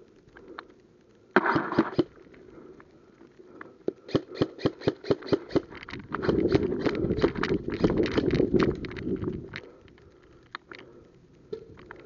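Airsoft gun firing: a quick cluster of sharp shots, then a long string of rapid shots at about four to five a second, with a rough rumble under the later part.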